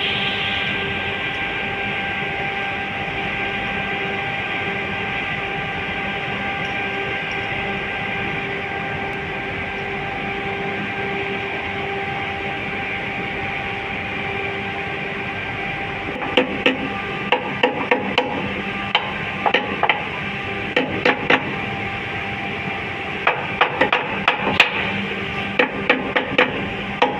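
Steady hum of nearby plant machinery with several fixed tones. From about two-thirds of the way in, irregular sharp metallic clicks and knocks come in clusters as a wrench works the bolts of a roto packer's impeller.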